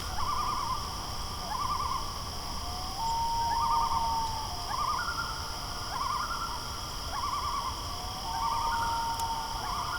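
Common loons calling across a lake: repeated wavering tremolos and two long, drawn-out wails that rise and then hold. A steady high chorus of insects runs underneath.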